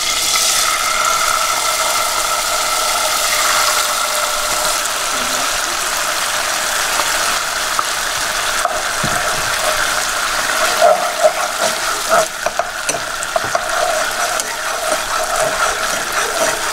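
Hoisin sauce sizzling in hot olive oil in a saucepan, a steady hiss. In the second half a spoon stirs and knocks against the pan.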